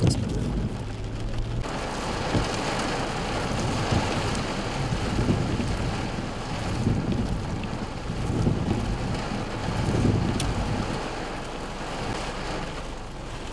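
Heavy rain pouring down in strong gusty wind: a dense rain hiss with low rumbling gusts that swell and fade every second or two. The hiss becomes suddenly louder and brighter about a second and a half in.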